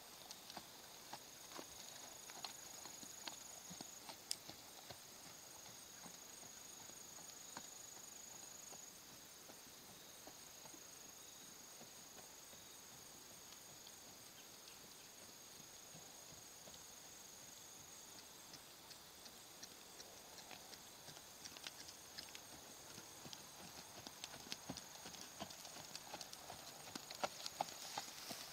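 Faint hoofbeats of a ridden horse moving over a sand arena. They grow louder and more frequent near the end as the horse lopes closer. A steady high-pitched tone runs underneath.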